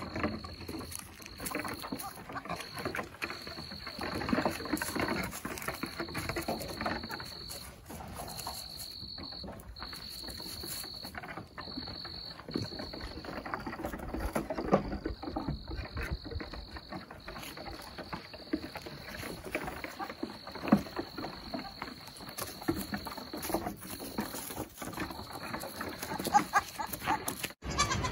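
Goat kids' hooves knocking and clattering on a wooden platform and slatted ramp as they run and jump, over a high, steady insect buzz that comes in stretches of about a second with short breaks.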